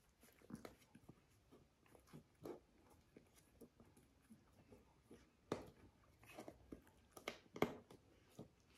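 Faint scattered clicks and soft knocks as puppies shuffle and scrabble in a wooden crate bed, with a few louder knocks in the second half.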